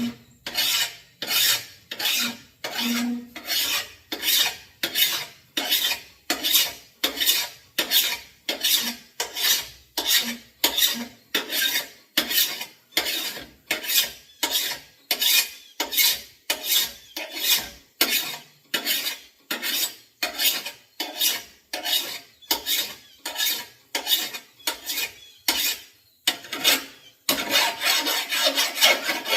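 Hand file being pushed across the edge of a steel lawn mower blade in steady, regular rasping strokes, about one and a half to two a second, with a quicker run of strokes near the end. The blade is being finished by hand to a flat 30-degree cutting edge after rough grinding.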